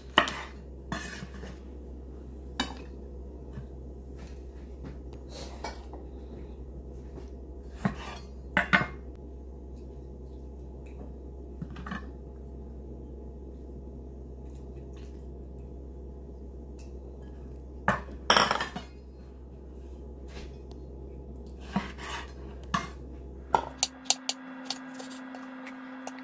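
Chef's knife knocking on a bamboo cutting board in scattered single strokes while green hot pepper and then tomato are cut, with a quicker run of strokes near the end as the tomato is chopped into large pieces.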